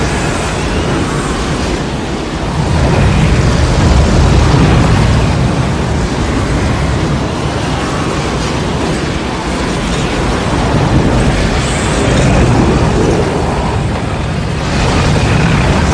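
Tornado sound effect: a loud, continuous roar of rushing wind over a deep rumble, swelling a few seconds in and again near the end.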